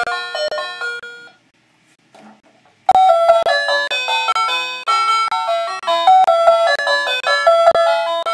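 Battery-operated toy fire truck playing a tinny electronic chiming tune. The melody fades out a little over a second in, breaks off for about a second and a half, and starts again about three seconds in.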